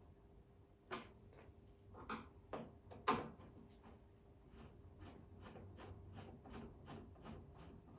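Clicks and knocks from hard parts being handled and fitted during table saw assembly. The loudest is a sharp knock about three seconds in, and a run of small, evenly spaced clicks follows at about three a second.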